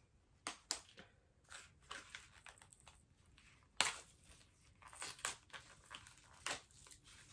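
Plastic retail packaging of an SD card crackling and snapping as it is pried and torn open by hand: a string of faint, irregular crackles, the sharpest snap near four seconds in.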